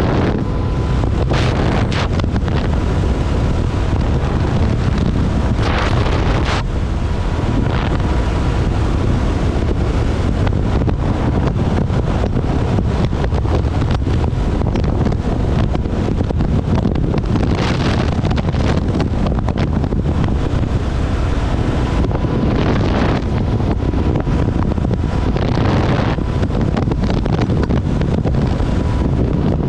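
Heavy wind buffeting the microphone on a moving Kawasaki KLR650 motorcycle, with its single-cylinder engine running underneath at a steady pace. Louder gusts come every few seconds.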